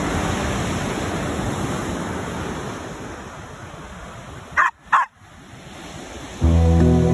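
Surf washing on the beach, then a Welsh Terrier gives two short barks in quick succession about four and a half seconds in. Music comes in near the end.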